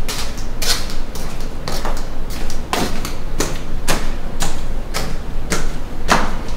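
Footsteps on a concrete floor and steps: sharp, hard-soled strikes at a walking pace of about two to three a second.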